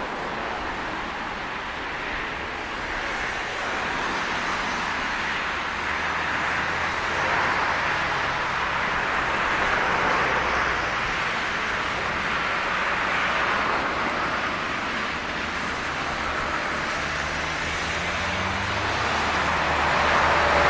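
Airbus A340-300 with its four CFM56 turbofan engines at takeoff thrust through the takeoff roll, liftoff and initial climb: a steady jet rush that slowly grows louder, loudest near the end.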